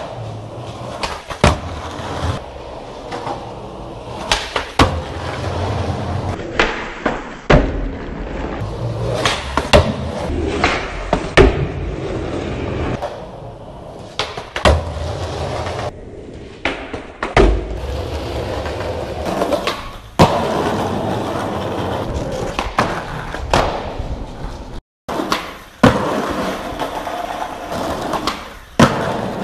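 Skateboard wheels rolling on asphalt and concrete, broken by many sharp cracks of the board popping and slapping down on landings. The sound changes abruptly several times between takes and drops out briefly once near the end.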